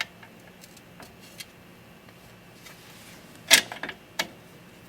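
Scattered metal clicks and clinks from handling the nuts and front fender being fitted to a tricycle frame. A few faint ticks come first, then a sharp clink about three and a half seconds in, followed by two smaller ones.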